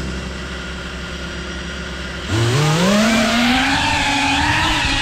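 FPV quadcopter's brushless motors spinning steadily at idle, then about two seconds in the throttle comes up and the motor whine rises sharply in pitch and keeps wavering up and down as the quad flies.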